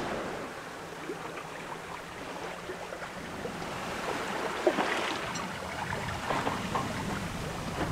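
Sea water rushing and splashing past a sailboat's hull as it sails through choppy waves, with wind and a few light knocks, the largest about five seconds in.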